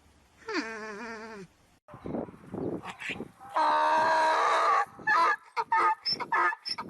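Animal calls: a wavering call falling in pitch, then a longer, louder call, then a run of short choppy calls near the end.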